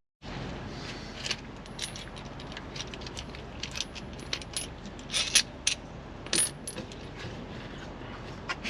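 Small metal parts (a bolt, washers and bushing hardware) clinking and tapping against each other as they are handled and fitted, in scattered irregular clicks over a steady background hiss.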